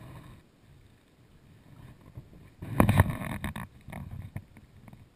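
A loud rustling buffet lasting about a second, starting a little under three seconds in, then light repeated clicks from a fishing reel as its handle is cranked.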